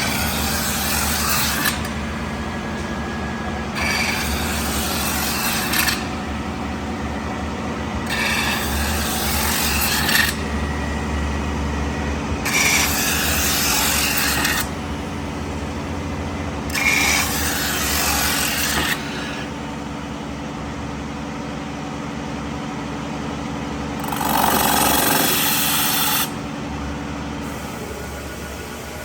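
CNC metal spinning lathe running with a steady hum while its forming roller rubs against the spinning sheet metal in six rasping passes of about two seconds each, one every four seconds or so.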